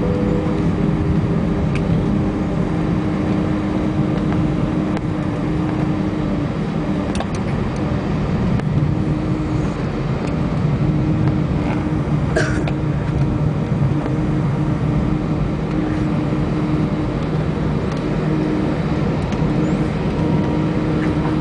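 Airbus A320 cabin noise on the landing rollout: a steady roar of engines and wheels heard from inside the cabin as the airliner slows on the runway, with a low hum underneath. A single short knock about twelve seconds in.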